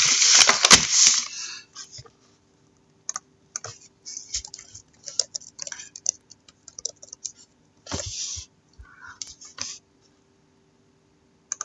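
Typing on a keyboard, looking a player up: irregular light clicks and taps, after a loud rustle near the start.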